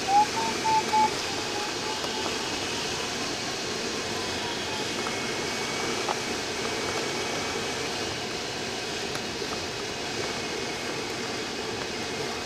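Steady rush of airflow around the cockpit canopy of a Speed Astir glider in flight. For about the first second a variometer sounds short electronic beeps that step up in pitch, then a faint tone lingers and fades out.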